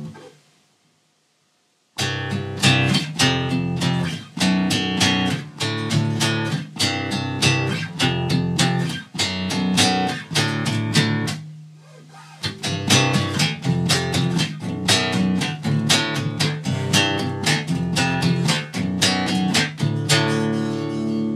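Jackson electric bass played fingerstyle: a fast run of plucked notes starting about two seconds in, a briefly held note about halfway through, then the fast notes again.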